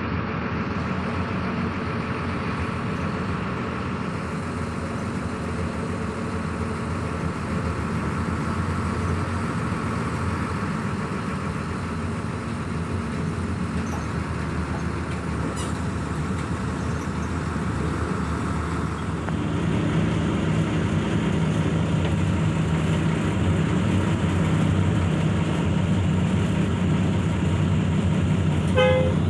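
Cabin noise inside a moving intercity bus: the diesel engine's steady drone under road noise. It grows louder about two-thirds of the way through.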